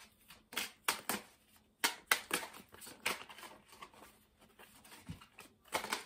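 A deck of tarot cards shuffled by hand: an irregular series of short clicks and slaps as the cards are pushed through the hands, roughly two a second.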